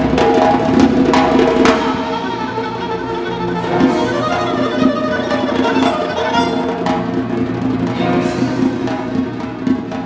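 Live orchestral music: held string and ensemble tones with sharp percussion strikes, clustered in the first two seconds and recurring later.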